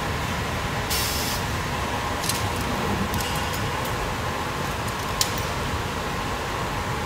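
Steady machinery noise from an automatic CNC glass cutting line, a continuous hum and whir. A short air hiss comes about a second in, and a few sharp clicks follow later.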